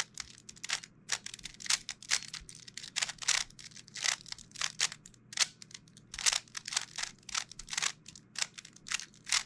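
A non-magnetic ShengShou metallic 3x3 speed cube being scrambled: a quick run of turning clicks, two or three turns a second.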